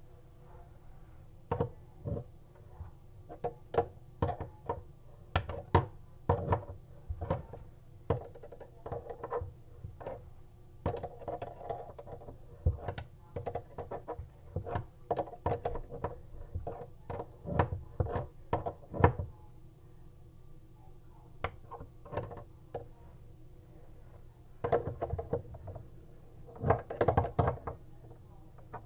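Irregular clicks, knocks and clinks of hand tools and metal plumbing fittings being handled and worked on during a faucet installation. The clicks come thick and uneven for most of the stretch, with a lull about two-thirds of the way through and a dense cluster near the end.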